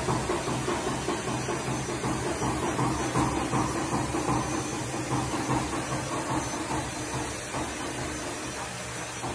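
A steady rushing hiss over a low hum, easing off a little near the end.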